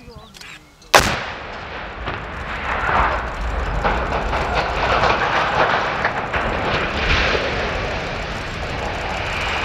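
Explosive demolition of a colliery shaft headframe: one sharp blast about a second in, followed by a long rumble with scattered crackles as the tower topples and comes down.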